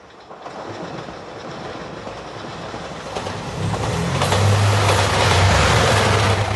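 JR Shikoku 2700 series diesel limited-express train approaching and passing a level crossing, growing steadily louder. Its wheels rumble on the rails, and about three and a half seconds in the deep hum of its diesel engines joins in.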